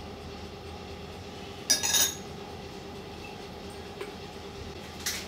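A metal spoon clinks and clatters briefly against a ceramic bowl about two seconds in, with another short clink near the end, over a faint steady hum.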